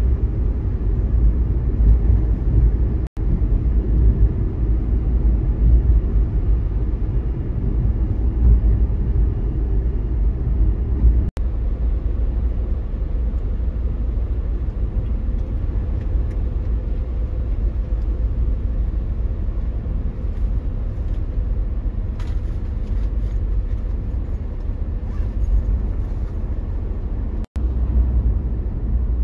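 Steady low engine and tyre rumble heard from inside the cabin of a jumbo-taxi van driving on the road. The sound drops out abruptly three times, at about 3, 11 and 27 seconds in.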